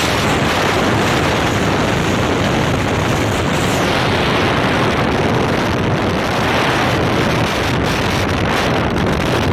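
Steady, loud wind roar buffeting the phone's microphone as the vehicle travels fast along a highway, mixed with road rush.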